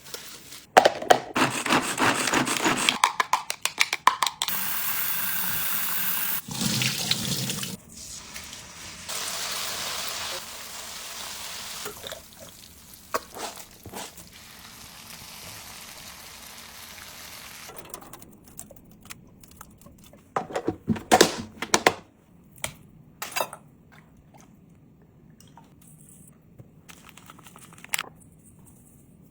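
Kitchen sink sounds: water running from a tap in stretches, with rustling and clattering of things being handled and a few sharp knocks near the end.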